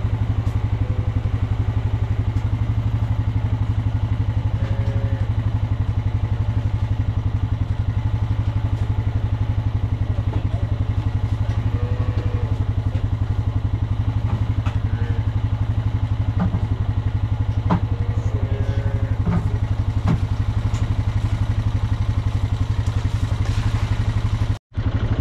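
ATV engine idling steadily with an even low putter, a few faint knocks over it in the middle.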